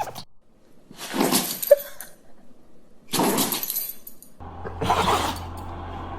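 A dog sneezing: sharp, noisy sneezes about two seconds apart, with another near the end.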